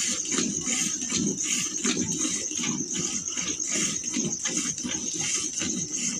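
A cow being milked by hand: rhythmic squirts of milk hitting a steel milk can, about three a second, with a steady high-pitched whine underneath.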